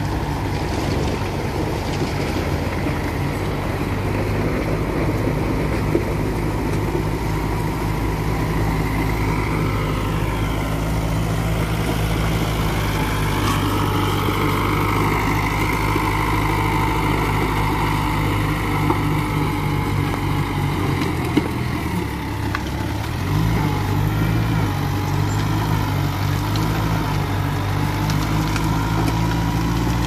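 Mitsubishi BD2 small crawler bulldozer's diesel engine running steadily as the machine drives and pushes dirt, with a few sharp knocks. A little past two-thirds of the way through the engine note dips briefly, then settles at a new pitch.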